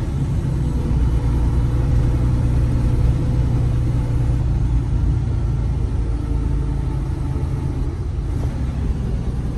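Semi truck's diesel engine running with road noise, heard from inside the cab: a steady low rumble.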